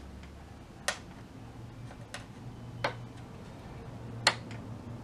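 Sharp clicks of a vacuum-tube tester's rotary knobs and lever switches being set for a filament continuity test, about four separate clicks a second or so apart, the loudest near the end, over a faint low hum.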